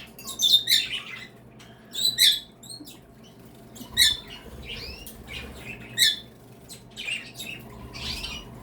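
Several small pet birds of mixed species chirping and calling: short, separate chirps and curving whistled notes, with the loudest calls about half a second, two, four and six seconds in.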